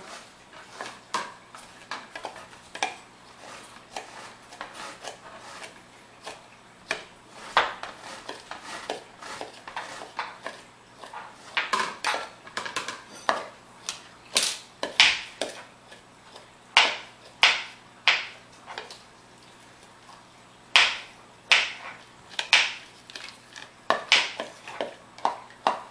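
Metal utensil clinking against a glass bowl of sliced red onions: irregular sharp clicks with a short ring, scattered at first, then louder and coming in quicker clusters over the second half.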